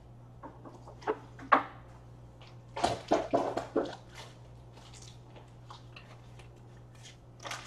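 Hands fitting a trading card into a one-touch magnetic plastic card holder: scattered clicks and plastic rustles, with a quick run of scraping, clattering handling noises about three seconds in.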